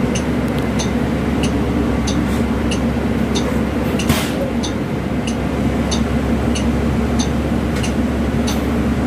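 Inside a city bus: a steady engine and ventilation hum, with sharp ticking about twice a second, like a turn signal, while the bus waits at an intersection. A short hiss about four seconds in.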